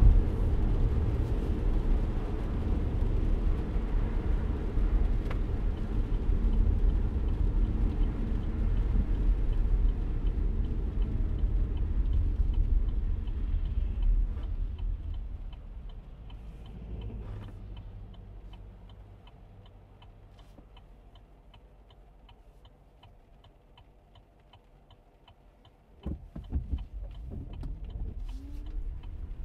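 Inside a car in the rain: steady road and engine rumble while driving, dying away as the car slows to a stop. A turn-signal relay ticks about one and a half times a second. Near the end the windshield wipers sweep with a rubbing thump and the car pulls away.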